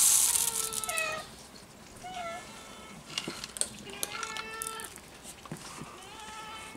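Several domestic cats meowing for food: a run of short meows, one about every second. It opens with a louder burst of hissing noise that fades about a second in.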